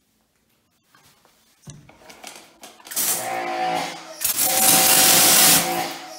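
Ryobi electric pressure washer running, its motor and pump humming under the hiss of the spray hitting the tiled shower floor. It starts a couple of seconds in, comes in two spells with a short break just past the middle, and cuts off near the end.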